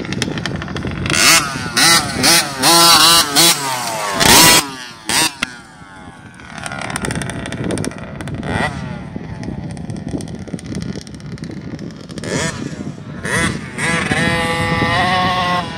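Small two-stroke 50cc youth dirt bike running on the track, its engine revving up and down as the rider works the throttle and holding a steadier pitch near the end. A few loud rushing bursts come in the first five seconds.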